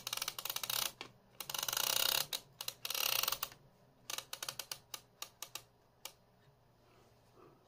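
Plastic reel of an open VHS cassette turned by finger to wind in slack tape, its toothed rim ratcheting in three quick runs of rapid clicks, then a few single clicks.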